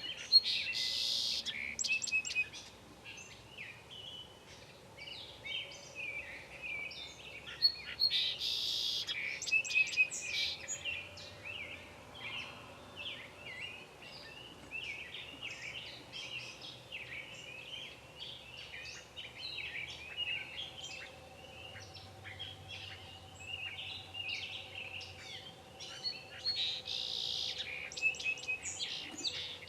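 Several songbirds singing and chirping at once, a busy chorus. One louder song, a buzzy opening followed by a quick run of notes, comes three times, about nine and then nineteen seconds apart.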